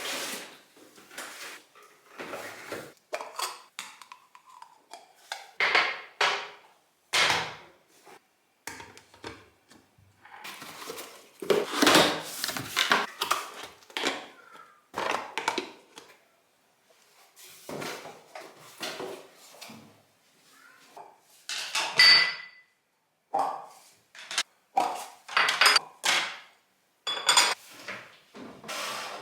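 A delivery parcel being unpacked: packaging rustled and handled in irregular bursts, with breakfast dishes set down and clinking together, a few clinks ringing briefly.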